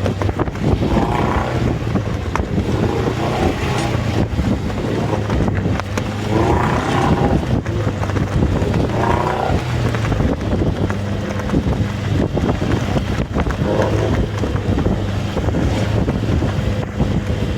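Committee boat's engine running with a steady low hum, under strong wind buffeting the microphone; faint voices come through now and then.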